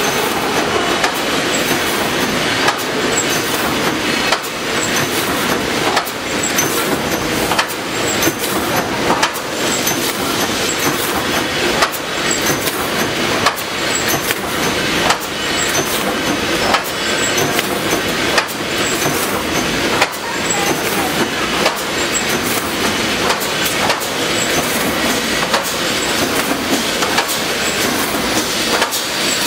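Fence mesh panel welding machine running: a steady, loud mechanical clatter with a sharp knock about every one and a half seconds, the rhythm of its weld-and-advance cycle.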